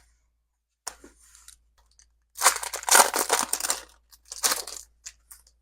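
A Pokémon booster pack's foil wrapper being torn open and crinkled: a few light clicks first, then a long crackling tear from about two seconds in and a shorter crinkle near the end.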